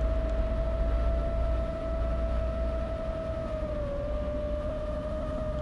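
FPV quadcopter with five-inch Foxeer Donut toroidal propellers humming in flight: one steady mid-pitched tone with a fainter overtone, sagging slightly in pitch about four seconds in, over a low rumble.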